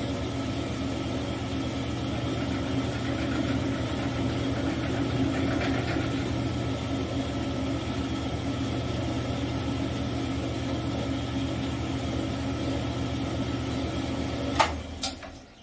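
Enco benchtop mill-drill running steadily while milling a shallow firing-pin relief into the edge of a brass cartridge case. Near the end the machine is switched off with two sharp clicks, and its hum dies away.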